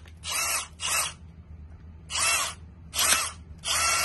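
Bosch GSR 18V-EC FlexiClick brushless cordless drill driver run in five short trigger pulls. Each time its motor whine rises as it spins up and falls as it slows down.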